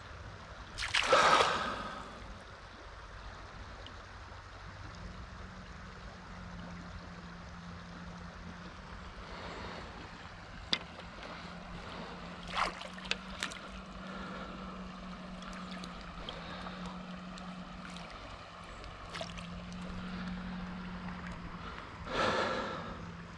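River water running and lapping close by, with a low steady hum underneath and a few small clicks and knocks; two loud, brief rushing bursts, about a second in and again near the end.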